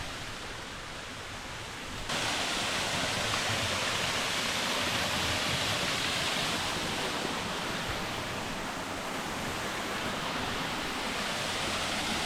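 Small waterfall pouring into its pool, a steady rush of falling water that becomes suddenly louder about two seconds in.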